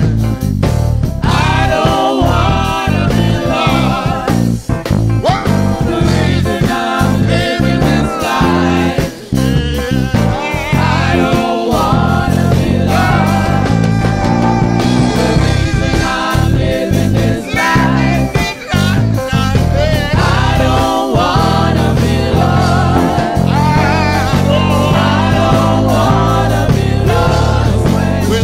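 Live gospel worship song: several singers on microphones, backed by a band with a strong, steady bass.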